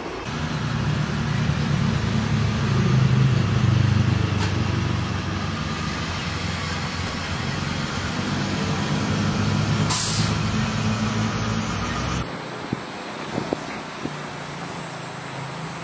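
RC dump truck's engine sound module playing a diesel truck engine rumble, building up and then easing off, with a short air hiss about ten seconds in. About twelve seconds in the rumble stops and gives way to a quieter stretch with a few faint clicks.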